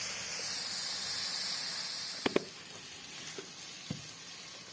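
Steady hissing and sizzling of a karahi cooking over a wood fire, easing a little after about two seconds, with two sharp clicks close together just past two seconds in.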